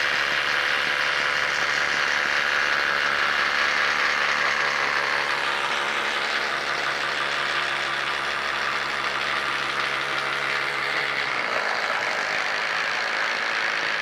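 Milwaukee 18-volt cordless impact driver on speed 3, hammering under load as it bores a 1-1/4 inch spade bit into a wooden post; steady and loud. About eleven and a half seconds in, the low hum drops away as the bore ends, and the driver keeps running.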